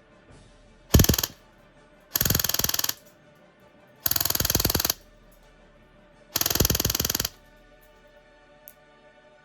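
Real Sword Type 56-2 airsoft electric AK firing: a short shot about a second in, then three full-auto bursts of under a second each, about two seconds apart. It runs on an 11.1 V battery with its rate of fire turned down.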